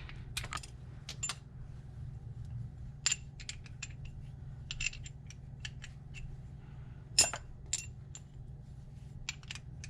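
Light metallic clinks and clicks of hand tools and parts being handled while refitting a starter, irregular, the loudest about seven seconds in, over a steady low hum.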